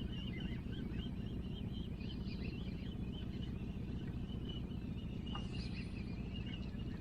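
Boat motor running steadily at trolling speed, a low even rumble, with a faint wavering high-pitched tone on top of it.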